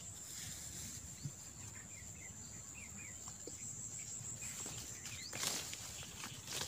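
Insects buzzing steadily at a high pitch, with a few faint bird chirps. A short scuffing noise comes about five and a half seconds in.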